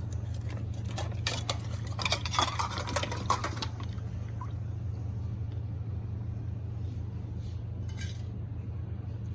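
Dishes and serving utensils clinking and clattering for the first few seconds as food is dished out into bowls, over a steady low hum.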